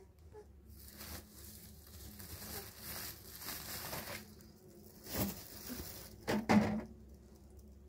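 A white plastic bag rustling and crinkling as it is handled, with two louder handling bumps, one about five seconds in and another just after six seconds.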